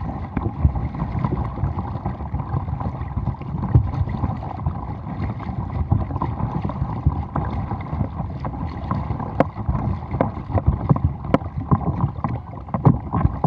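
Double-bladed kayak paddle strokes splashing and dripping in the lake, with water sloshing along the hull of an Oru Bay ST folding kayak and wind rumbling on the microphone. A few light clicks come in the second half.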